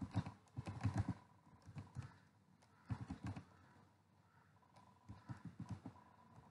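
Faint typing on a computer keyboard: short runs of quick key clicks with pauses between, four runs in all.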